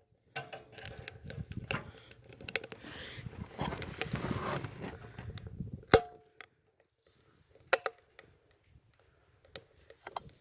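Dry cedar kindling burning in a homemade tin-can stove, crackling and popping irregularly, with a rustling stretch in the first half and one sharp crack about six seconds in.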